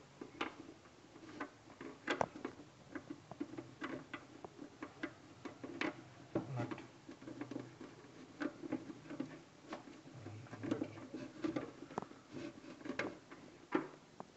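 Irregular small clicks and rubbing of hands screwing the RO faucet's mounting nut onto its threaded stem, tightening it by hand.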